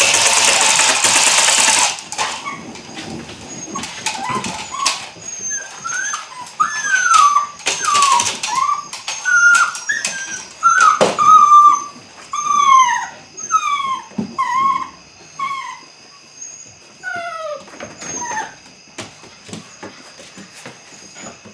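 An eight-week-old Belgian Malinois puppy gives a long string of short, high yips and whines, each falling in pitch. There is a loud rattling swish of a split stick against the paving in the first two seconds and again about eight seconds in, with a few sharp knocks.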